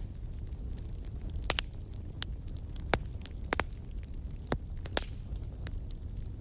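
Wood fire in a fireplace crackling, with sharp pops and snaps from the burning logs over a low, steady rumble.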